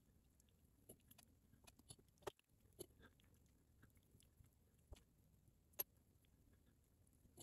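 Near silence with faint, scattered small clicks and ticks from handling metal hackle pliers and the fly at the vise, the sharpest about six seconds in.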